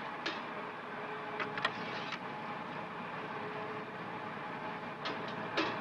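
Steady running noise of a shrimp fishing boat's engine, with a few sharp clicks and knocks, a cluster about one and a half to two seconds in and two more near the end.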